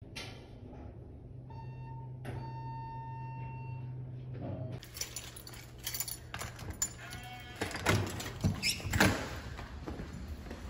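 A faint hum with a held, pitched tone for the first few seconds, then a run of sharp clicks and knocks from a key fob at an electronic door lock, the lever handle and the door being opened, the loudest knocks just before the end.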